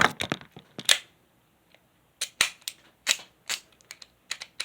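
Sharp, irregular clicks of a combination padlock being handled: a quick cluster at the start, a short pause, then single clicks about two a second.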